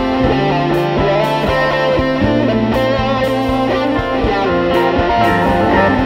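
Instrumental outro music led by electric guitar, with a bass line and a steady drum beat.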